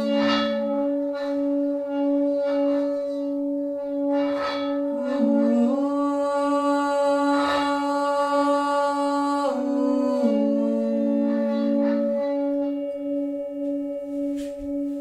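Himalayan singing bowls ringing with a steady, pulsing tone. A second held tone with many overtones slides down and up between a few pitches over it, and a few brief strikes ring out along the way.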